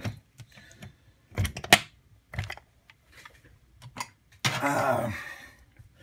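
A few sharp clicks and clacks of small hard objects being handled and set down on a wooden workbench. The loudest knock comes about a second and a half in.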